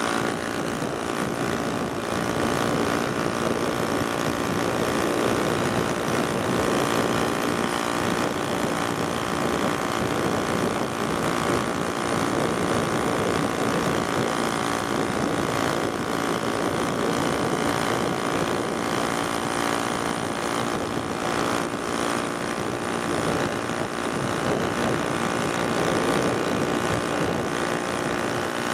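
The small 49 cc two-stroke engine of a VéloSoleX moped running steadily at riding speed.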